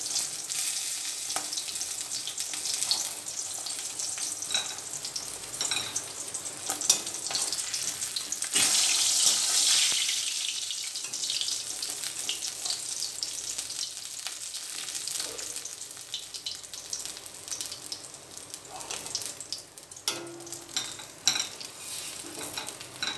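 Katla fish pieces frying in hot mustard oil in a metal karahi, a continuous sizzle and crackle, with clicks and scrapes of a metal spatula against the pan as pieces are turned and lifted out. The sizzle swells about nine seconds in, then dies down toward the end.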